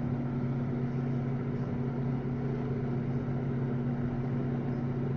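Steady low hum with an even background hiss and no distinct events.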